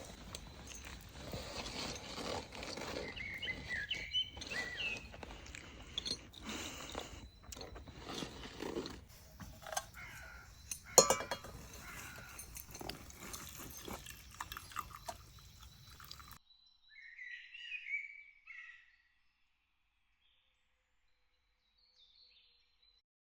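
Birds chirping over an outdoor background with scattered clicks and knocks, one loud knock about halfway. The background cuts off suddenly, a bird keeps calling for a couple of seconds, then near silence with one faint chirp near the end.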